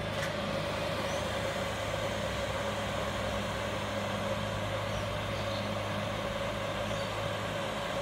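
Cheap 12 V 5 kW diesel air heater running steadily through its shutdown cycle: a constant fan hum with a steady whine, as the blower keeps turning while the heater shuts down.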